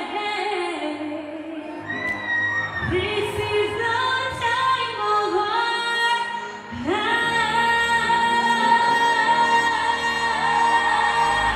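A woman singing a slow melody into a microphone with long held notes, over live instrumental backing amplified in a large concert hall; the band's bass comes in heavily near the end.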